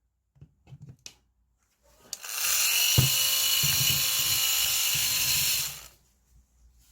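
Vacuum cleaner motor under repair switched on: it spins up with a rising whine, runs loud and steady for about four seconds with a knock partway through, then shuts off. A few small handling clicks come before it.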